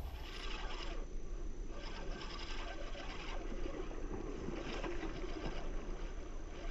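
Wind rumbling on the microphone, with light scraping as a spinning reel is cranked.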